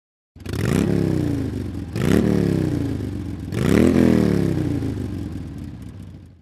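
An engine revved three times, each rev climbing quickly in pitch and then falling away slowly, the last one dying out near the end.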